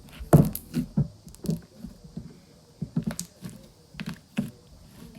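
Fluffy slime being kneaded and squeezed by hand, giving irregular sticky clicks and pops, two or three a second.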